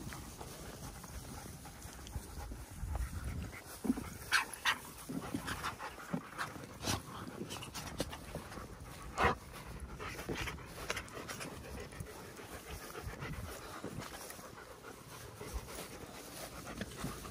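German Shepherd dogs panting close by while out walking, with a scattering of short sharp clicks and taps through the middle, the loudest about nine seconds in.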